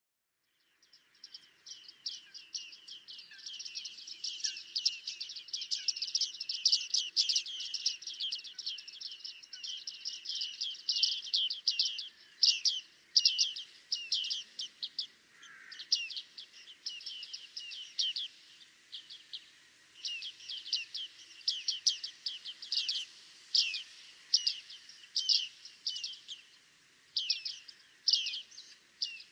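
Bearded tits giving rapid streams of short, high-pitched calls. The calls are packed densely over the first half, then come in separate bursts with short pauses between them.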